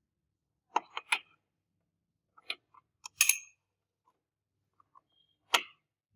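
Sharp clicks and taps of small hard parts being handled and set down: a quick cluster of three, then several single knocks spread out, with silence between.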